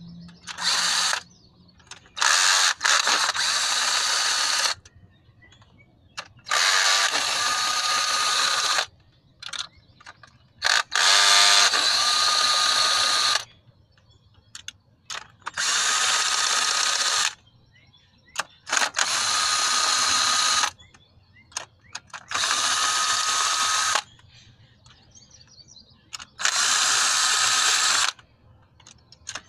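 Cordless power tool running in repeated runs of one to two seconds, about eight times with short pauses between, backing the cylinder head bolts out one by one from the outside inward.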